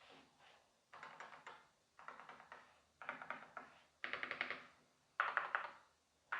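Typing on a Keychron K4 HE Hall-effect keyboard with Gateron Double-Rail Magnetic Nebula switches: short runs of quick keystrokes about once a second, with brief pauses between.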